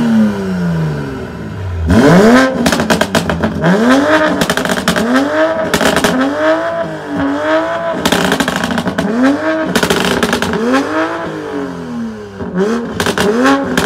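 Toyota GR Supra's exhaust being revved over and over in quick blips, about one every second or so, each rising and falling in pitch, with sharp crackles among the revs.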